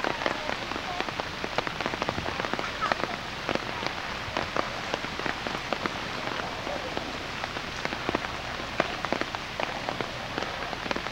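Heavy rain falling onto a flooded street: a steady hiss of rain on standing water, with many sharp drop impacts close by.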